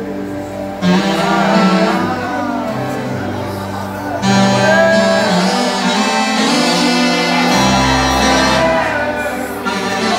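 Amplified church worship music: a voice singing over instruments with sustained bass notes. It gets louder about a second in and again about four seconds in.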